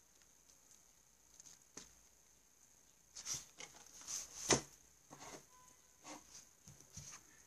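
Paper rustling and flapping as the pages of a spiral notebook are turned over and laid down on a desk, from about three seconds in, with one sharper knock partway through.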